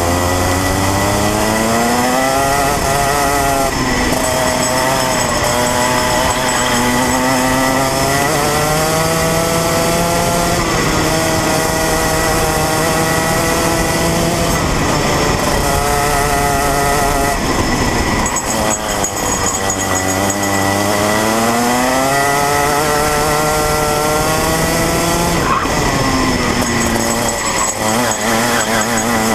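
Rotax Mini Max 125cc single-cylinder two-stroke kart engine at racing speed, heard from onboard the kart. Its note climbs again and again as it accelerates and drops sharply each time the throttle is lifted for a corner, about five times.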